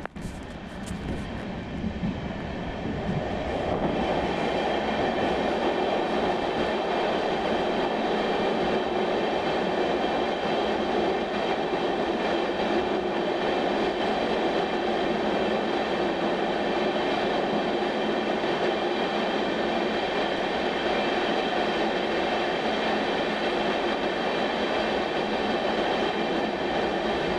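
Passenger train running at speed, a steady rumble of wheels on rail that builds over the first few seconds and then holds level.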